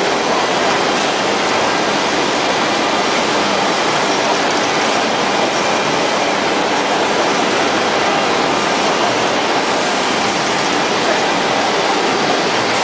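High-speed gravure printing machine running: a loud, steady rushing noise that does not change.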